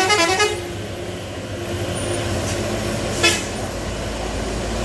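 A truck horn honks, a pulsing blast that stops about half a second in, then gives one short toot a little after three seconds. Under it runs the steady rumble of diesel trucks climbing the hill.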